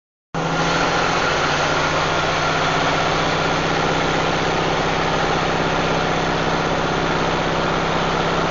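Western Star log truck's diesel engine running at a steady pitch, heard from inside the cab while the truck is under way.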